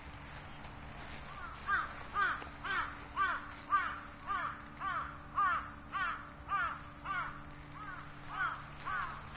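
A crow cawing in a long run of evenly spaced calls, about two a second, starting a second or so in, over a faint steady low hum.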